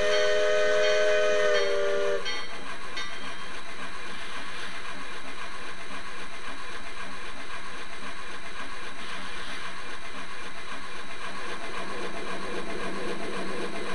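Steam locomotive chime whistle sounding a chord of several tones, dipping slightly in pitch as it cuts off about two seconds in. It is followed by the steady exhaust and hiss of a light logging steam locomotive working along.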